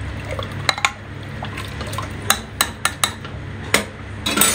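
Steel spoon stirring watery rice and lentils in an aluminium pressure cooker, sloshing and clinking sharply against the pot's sides several times at uneven intervals, with a short clatter near the end.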